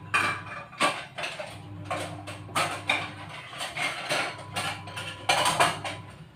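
Kitchen clatter: irregular clinks and knocks of dishes and utensils being handled, over a low steady hum.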